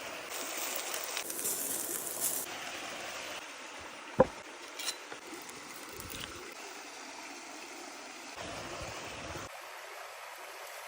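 Chicken sizzling as it fries in hot oil, a steady crackling hiss. A sharp clink sounds about four seconds in, with a smaller tick just after.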